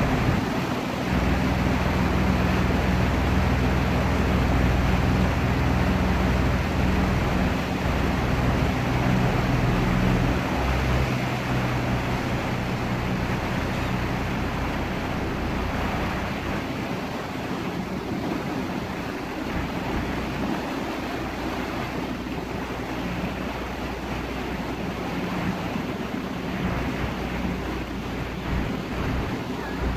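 Tour boat's motor running steadily under way, with water rushing past the hull; the engine hum eases somewhat about ten seconds in.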